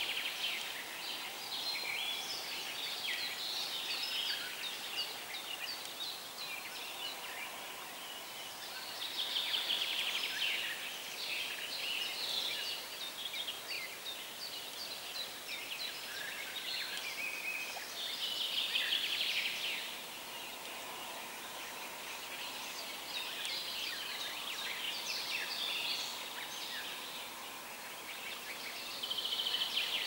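Several songbirds singing at once, phrase after phrase overlapping without a break, over a steady soft hiss of running river water. The singing swells louder a few times, about a third of the way in, again past halfway, and at the very end.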